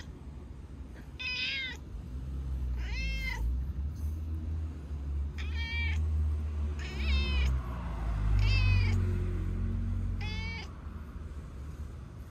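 A calico cat gives six short, high meows, one every second and a half to two seconds, as it is stroked. A steady low rumble runs underneath.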